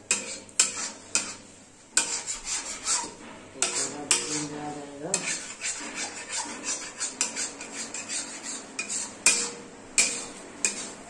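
Metal spatula scraping and knocking against a steel kadhai in quick, irregular strokes, stirring thick puréed spinach as it is fried.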